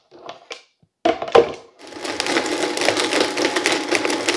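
Countertop blender jar set down on its base with a knock, then the blender runs steadily from about two seconds in, blending chopped Starburst candies into kombucha, with a rattle of candy pieces through the whirring.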